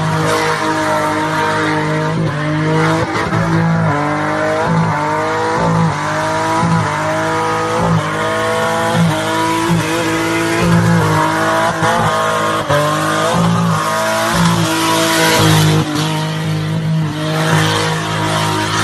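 Car drifting in its own tyre smoke: the engine revs hard in repeated rising pulls while the tyres squeal, with the tyre noise loudest about three-quarters of the way through.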